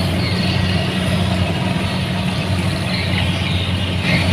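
Kubota DC-70 Plus combine harvester's diesel engine running steadily, a constant low drone.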